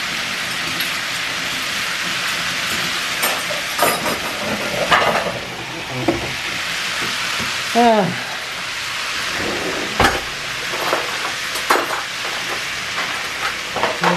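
Chicken frying in a pan with a steady sizzle, broken by several sharp clicks and knocks of utensils and dishes.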